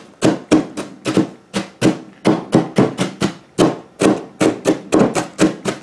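Kitchen knife chopping partially frozen diced onion, the blade knocking steadily on a paper-covered wooden table about three to four times a second.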